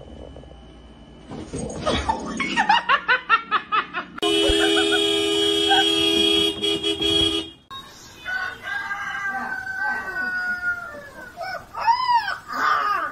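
A car horn sounds in one steady blare of about three seconds, set off by a dog pressing on the steering wheel. Before it comes a quick run of short pulsed calls, and after it a puppy howls with long wavering wails that rise and fall in arches near the end.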